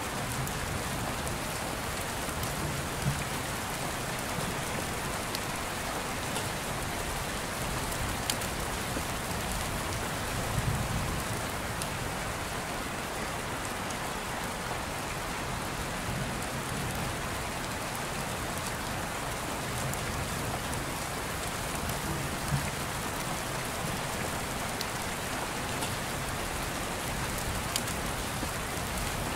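Steady rain falling: an even hiss with occasional sharper drop clicks and soft low swells every five or six seconds.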